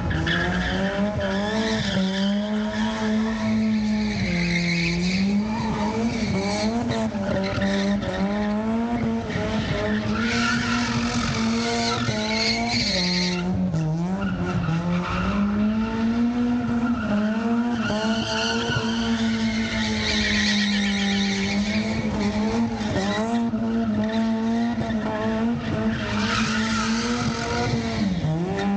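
A car drifting: its engine held at high revs, the pitch wavering up and down with the throttle, while the rear tyres squeal in long stretches as they spin and smoke.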